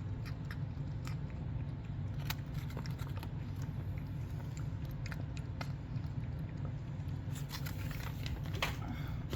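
A dwarf cat lapping goat's milk: a string of small, irregular wet clicks, coming thicker near the end, over a steady low hum.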